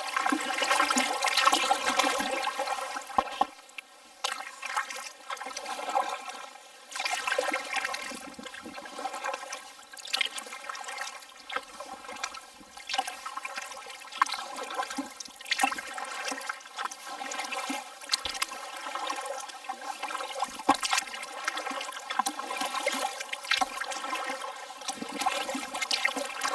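Water trickling and splashing as a kayak paddle dips and lifts, stroke after stroke, in an uneven rhythm of swells every second or two.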